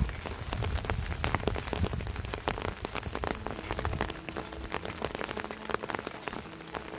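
Rain falling, with many sharp separate drop hits close by over a steady hiss. A low rumble underneath fades out about four seconds in.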